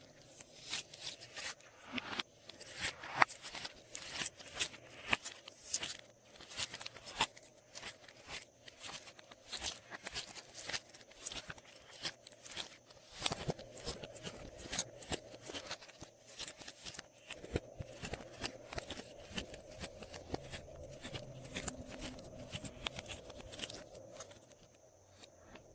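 Glossy slime being squished and worked by hand, giving a run of sticky clicks and pops, several a second and irregular.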